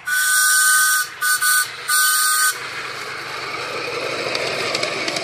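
Miniature steam locomotive's two-tone whistle blown three times (long, short, long), with a hiss of steam over the notes. Then the locomotive runs past, its running noise building slightly and fading toward the end.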